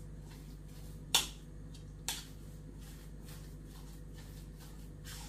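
Spoon knocking and scraping in a plastic mixing bowl as minced pork and beef is stirred: two sharp clicks about a second apart, then a run of softer, quicker taps.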